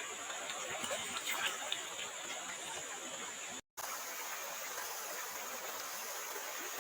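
Steady rain with a few sharper drops ticking in the first two seconds; the sound cuts out completely for an instant just past halfway, then the rain resumes.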